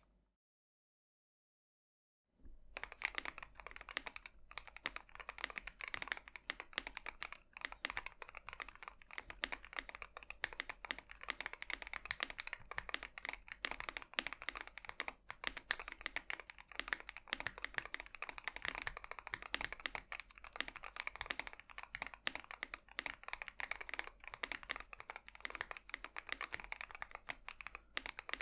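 Fast, continuous typing on a Tofu60 mechanical keyboard with Gateron Cap Yellow linear switches, an O-ring mount and switch pads, starting about two seconds in after a short silence.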